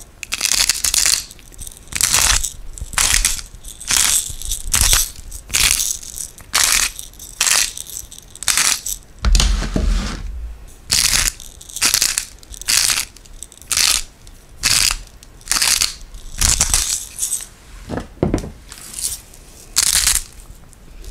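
Hand-twisted spice grinder grinding seasoning over raw beef: a steady run of crunchy, gritty grinding strokes, about three every two seconds, with a low thump about ten seconds in.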